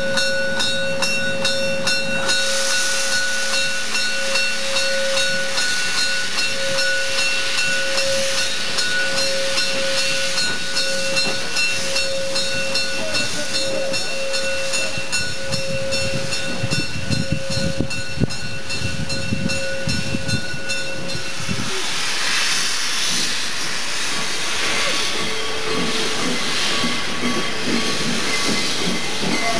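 Steam locomotive with hissing steam and a steady high tone, whistle-like, for about twenty seconds. The tone then stops and the hiss comes in regular surges of exhaust steam, roughly one every second or so.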